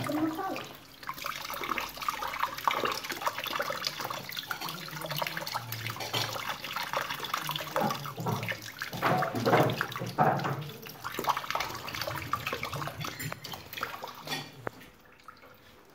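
Kitchen tap running, the stream splashing over hands and into a stainless steel sink and a basin of water as a small object is rinsed; the water sound falls away near the end.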